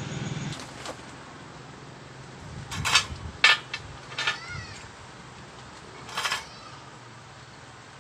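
A cat meowing in a few short calls, a pair about three seconds in, another just after four seconds and one more past six seconds, over a low steady hum.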